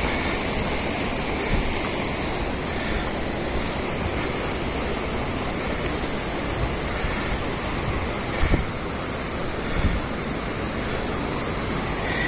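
Steady rush of water from the Rispana River's waterfall cascades, with two brief low bumps about two-thirds of the way in.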